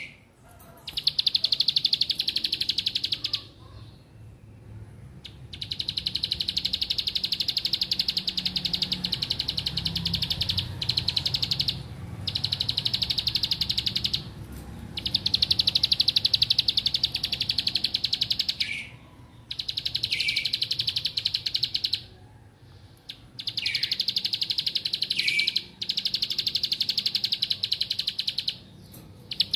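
Caged prinia (ciblek) singing long, rapid, buzzy trills, each lasting several seconds, seven in a row with brief pauses between them.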